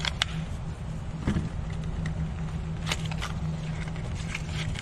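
Scattered sharp clicks and clacks from handling a Magpul D-50 GL9 9mm drum magazine and pistol and then a box of 9mm cartridges, over a steady low hum.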